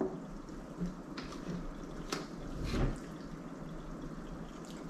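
Sipping a carbonated energy drink through a plastic straw from a can: faint liquid slurping, with a few small clicks spread through it.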